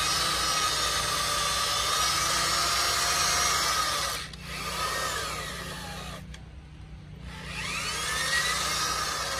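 Corded electric drill boring a long spiral bit into a freshly cut green cypress beam. It runs steadily, dips briefly about four seconds in and drops off for about a second just past six seconds, then picks up again with its pitch sliding as the motor speeds up.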